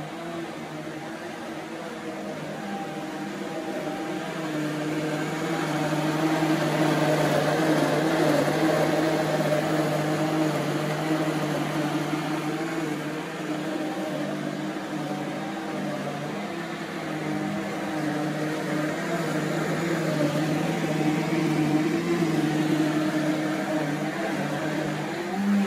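Powerful commercial countertop blender running steadily, its motor humming as it purées a thick fufu mixture smooth. The hum grows louder a few seconds in, then swells and eases slightly.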